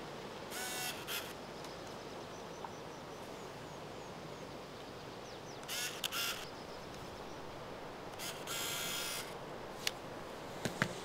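A compact film camera being handled and fired: three short rasping bursts about a second in, at about six seconds and near nine seconds, and a few sharp clicks near the end. These are typical of winding the film advance and releasing the shutter. Quiet outdoor ambience lies underneath.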